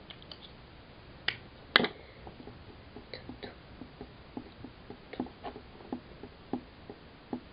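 Fingers and fingernails tapping on a smartphone screen lying on a desk: a string of light, irregular taps, about two or three a second. Two sharper clicks come just before the tapping starts, about a second and a half in.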